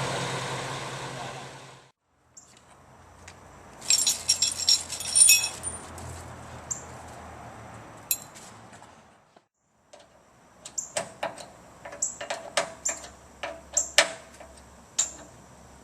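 An engine idling that cuts off about two seconds in, then bursts of sharp metallic clinking and jangling.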